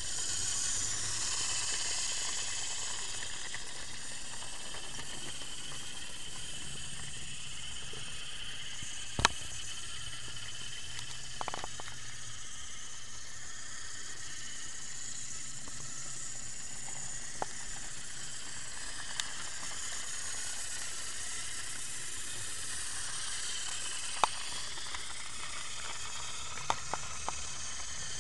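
Battery-powered TrackMaster toy train's small electric motor and gears whirring steadily as it runs along plastic track. A few sharp clicks sound through it, the loudest about nine seconds in and several close together near the end.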